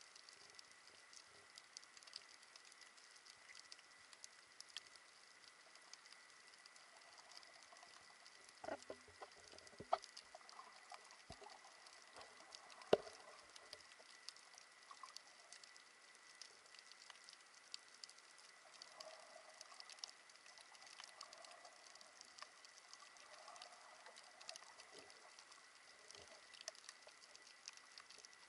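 Faint underwater reef ambience heard through the action camera's waterproof housing: a dense, steady crackle of tiny clicks, over a faint steady high tone. A few louder knocks come in the middle.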